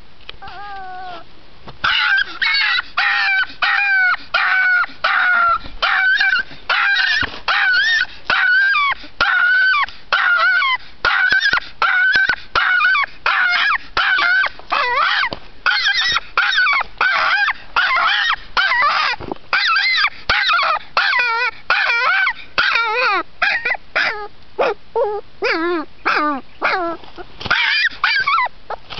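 A puppy barking over and over in short, high-pitched yaps, two to three a second, starting about two seconds in.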